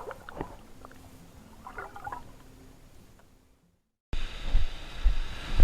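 Faint shoreline water sloshing with a few small clicks, fading out to silence about three seconds in. Just after four seconds the sound cuts back in with a low rumble and thumps, like wind buffeting the microphone.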